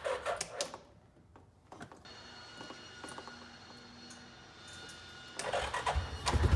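A few clicks, then a faint steady whine; near the end a utility vehicle's engine comes on and runs with a steady low drone.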